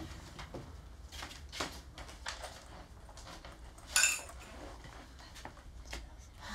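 Clothes and hangers being handled in a wardrobe: scattered light clicks and rustling, with one sharp, ringing clink about four seconds in.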